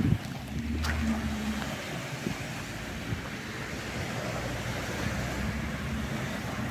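Small waves washing onto a pebble beach, with wind noise on the microphone and a low steady engine hum underneath.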